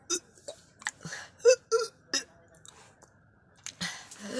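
A person making a quick run of short gagging, coughing and burp-like sounds, each lasting a fraction of a second. A pause follows, then another retch near the end.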